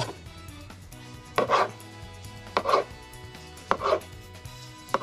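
Kitchen knife slicing a ripe tomato into rounds on a cutting board, about one slice a second: each stroke is a short click of the blade meeting the board followed by a brief wet rustle.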